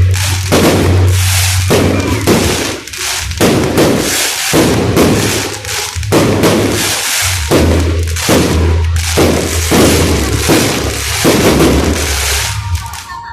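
Fireworks going off in quick succession: a dense, uneven run of bangs and crackles, with a steady low hum underneath.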